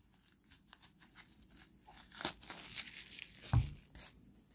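Plastic shrink wrap crinkling and tearing as it is peeled off a stack of trading cards, with a soft thump about three and a half seconds in.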